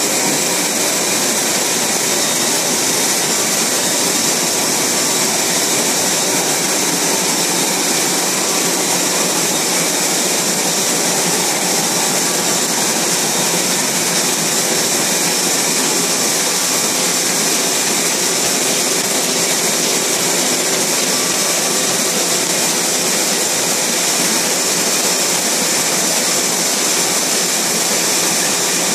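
Two-colour Aurelia Elite sheet-fed offset printing press running: a steady, even mechanical noise with a strong high hiss and faint steady tones.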